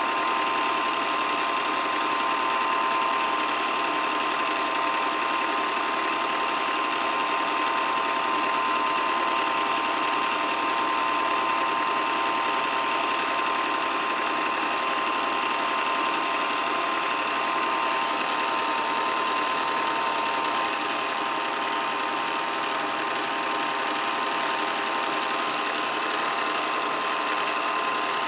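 8mm film projector running: a steady mechanical whirring with a constant high tone through it.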